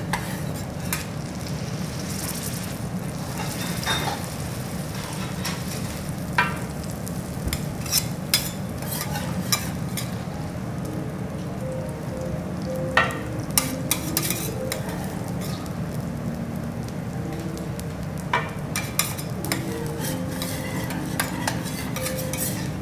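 Food sizzling steadily on a steel teppanyaki griddle, with sharp clicks and scrapes of metal spatulas against the plate every second or two.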